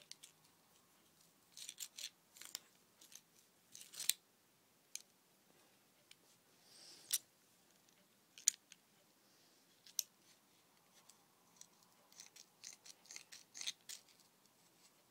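Scissors snipping through a knot of tangled wool yarn: a scattering of quiet, short, sharp snips and clicks, some in quick clusters.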